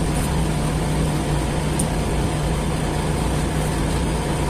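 Steady machine hum with a constant low drone, holding at the same level throughout.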